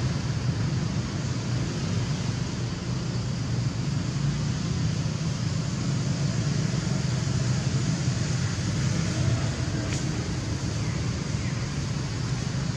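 Steady low rumble and hiss of wind buffeting the microphone, with a single sharp click about ten seconds in.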